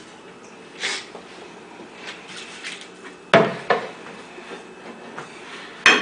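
A few knocks and clatters of kitchen things being handled and set down on a counter: a soft one about a second in, two close together a little after three seconds, and a sharp one near the end.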